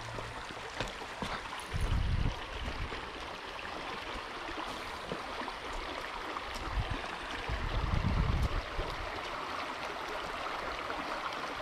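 Shallow creek water running over rocks in a riffle, a steady babbling rush. Two brief low rumbles come through, about two seconds in and again around eight seconds.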